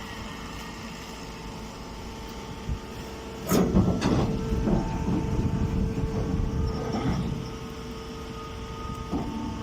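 Hydraulic press baler for chopped hay running with a steady hum. About three and a half seconds in, a loud stretch of knocking and clattering starts and eases after a few seconds, with another burst near the end.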